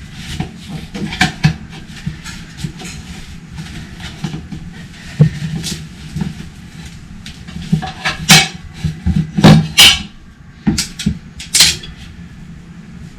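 Hand tools clanking and scraping against a motorcycle wheel rim: irregular sharp metal knocks, with a few louder bangs in the second half, over a steady low hum.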